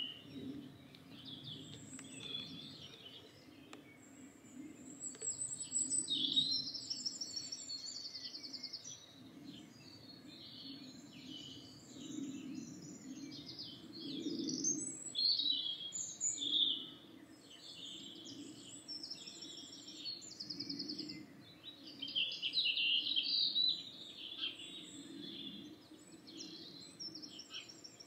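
Dawn chorus: several songbirds singing in short, high, warbling and trilling phrases that overlap one another, over a steady low background rumble.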